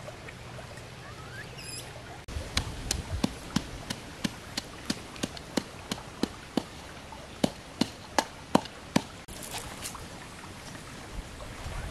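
Wooden pestle pounding in a small mortar, sharp knocks about three times a second that start about two seconds in and stop near the end, over the steady rush of a river.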